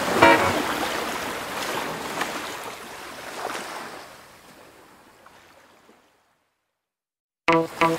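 Background pop music ends, trailing off in a wash of noise like surf that fades away over about six seconds. After a second and a half of complete silence, the music starts again near the end.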